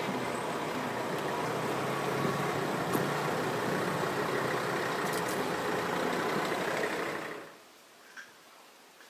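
A steady engine running, which cuts off abruptly about seven and a half seconds in, leaving quiet with a faint click.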